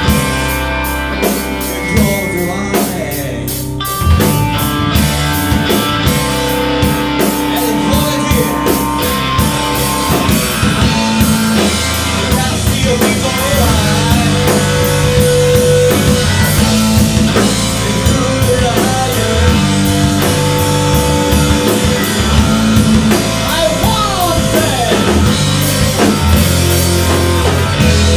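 Live rock band playing: electric guitar through a Roland JC-120 amp, with bass and drum kit. The band comes in harder and louder about four seconds in, with dense drum hits from then on.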